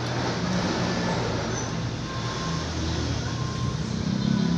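Single-cylinder motorcycle engine idling steadily, with its low hum shifting a little in pitch and strength about halfway through and swelling near the end.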